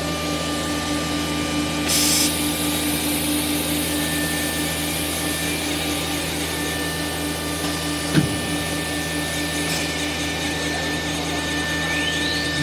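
CNC nesting router running its automatic labeling cycle: a steady machine hum with a high motor whine as the gantry moves. A short hiss of air about two seconds in, a sharp click around eight seconds, and a rising whine near the end.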